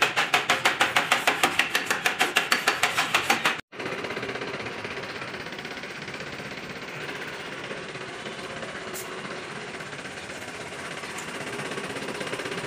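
Rapid, evenly spaced knocking, about six strikes a second, which cuts off abruptly a few seconds in. It gives way to a steady background noise of the workshop.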